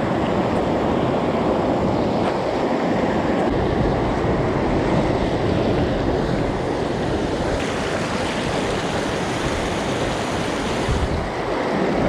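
Steady rush of a fast, cold mountain stream's current, with a hissier edge for a few seconds past the middle.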